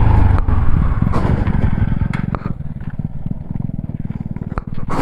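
Motorcycle engine running on a rough dirt road. It eases off to a slower, quieter beat about two seconds in, with a few sharp clicks over it.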